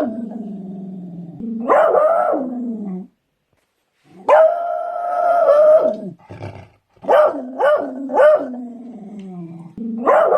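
Beagle barking and howling: drawn-out calls that drop in pitch at their ends. There is a pause of about a second, then three quick barks run into another long howl.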